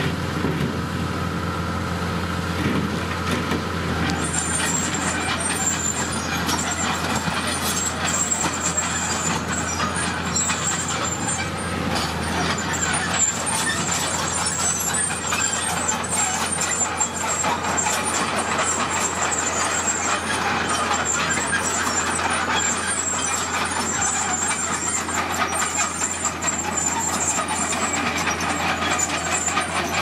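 Dump truck's diesel engine running steadily while it tips a load of crushed rock, the rock sliding and pouring off the raised bed.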